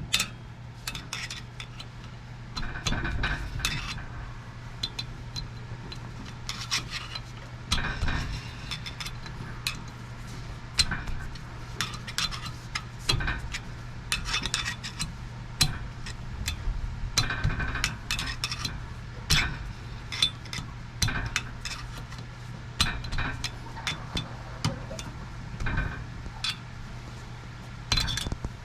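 Hand tools and steel wheel hub and bearing parts clinking and knocking irregularly, some strikes ringing briefly, over a steady low hum.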